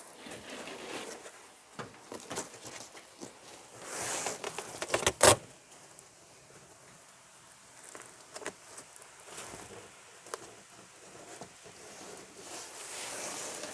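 Hands handling a Velcro strip and the bed mat: scattered rustling and scraping, with one sharp loud knock about five seconds in.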